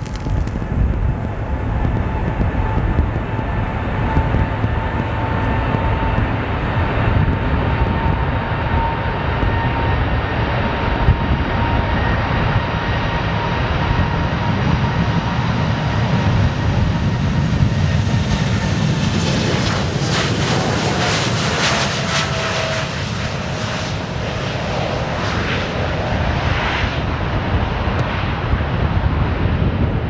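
Boeing 747-8F freighter's four GEnx turbofans at takeoff power: a loud, steady jet rumble with a high engine whine. Past the halfway point the jet noise turns crackling and a whine falls in pitch as the aircraft goes by and climbs away.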